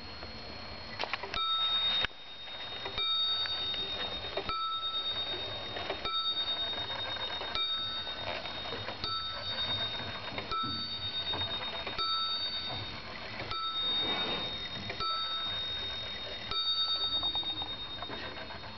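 Dutch Sallander wall clock striking the hour on its bell: about eleven evenly spaced strikes, roughly one every second and a half, each ringing on and fading before the next.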